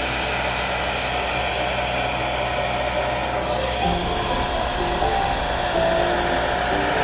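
Handheld hair dryer blowing steadily, its air stream pushing wet acrylic pour paint across a canvas.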